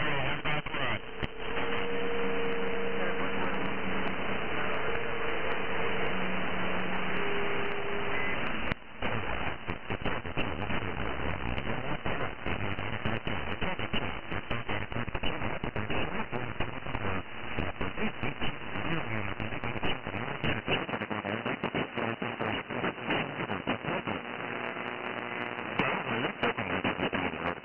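Radio static and hiss from a CB signal received on a software-defined radio, its audio filtered to a narrow CB-like bandwidth that cuts off sharply near 3 kHz. Through the first eight seconds a few steady whistling tones sit in the noise and step in pitch. After that dense crackling clicks run through the hiss.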